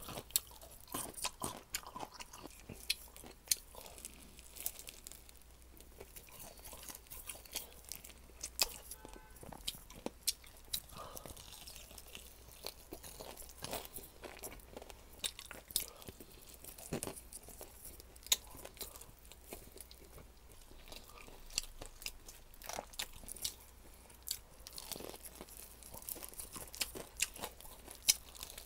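Close-up chewing of crispy-coated chicken: a steady, irregular run of crisp crunches and crackles as the breading is bitten and chewed.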